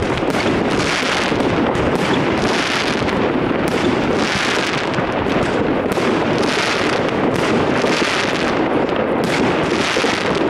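Aerial fireworks going off without a break: a dense run of bangs and crackling, with hissing swells from shells rising and bursting every one to two seconds.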